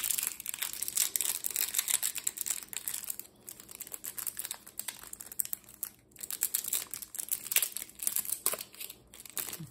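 Clear plastic wrap being picked at and peeled off a stack of trading cards, crinkling and crackling irregularly as the fingers work it loose.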